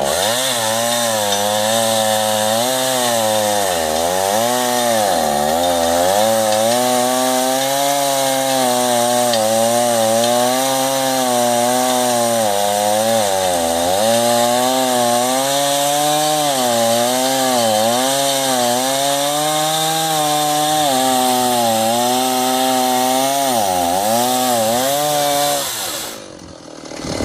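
Two-stroke chainsaw on an Alaskan chainsaw mill running at high revs while ripping a log lengthwise. Its pitch sags and recovers every second or two as the cut loads it, and it drops away abruptly shortly before the end.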